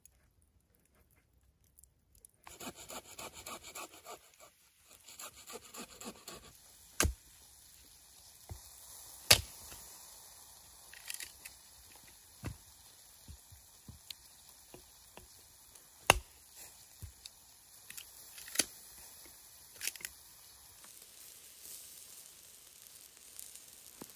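A knife whittling a wooden stick: a few seconds of quick repeated scraping strokes, then scattered sharp cracks and snaps of wood.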